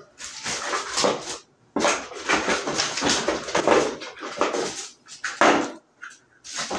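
Small plastic building blocks being rummaged through and handled, clattering and rattling in irregular bursts with short pauses.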